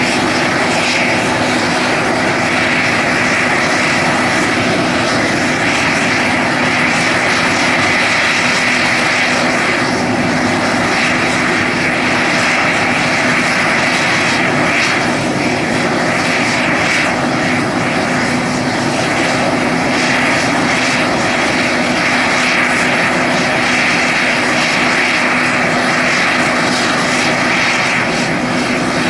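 UH-60M Black Hawk helicopter running on the ground: its twin General Electric T700 turboshaft engines give a steady turbine whine over the noise of the turning main and tail rotors, holding constant throughout.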